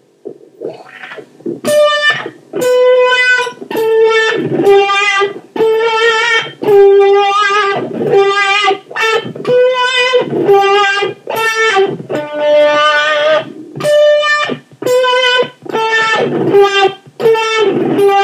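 Overdriven electric guitar played through an 18-volt Dunlop Cry Baby 535Q wah pedal with Clarostat pots, on its third setting. Picked single-note phrases, about a note a second, with short gaps between them.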